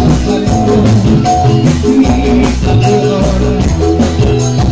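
Live dangdut band music, loud and steady, with a bass line, a held melody and a tambourine keeping the beat.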